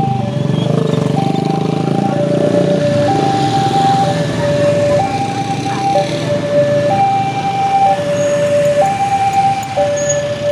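Railway level-crossing warning alarm, an electronic two-tone signal alternating between a higher and a lower tone about once a second, warning that a train is approaching. Car and motorbike engines run beneath it as vehicles drive over the crossing.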